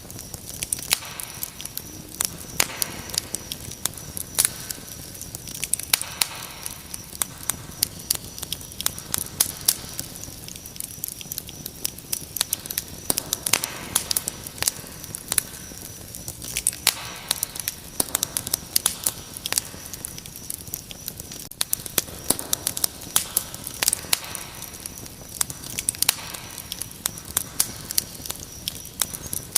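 Wood fire crackling, with frequent irregular sharp pops and snaps, over a steady high-pitched cricket trill.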